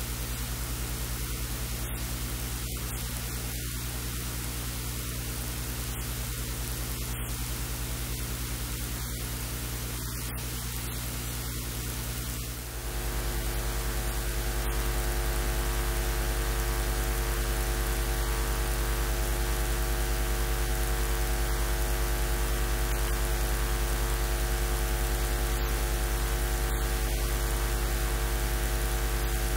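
Steady electrical mains hum, a buzz of many evenly spaced tones over a hiss of static. After a short dip about halfway through, the hum comes back louder and buzzier.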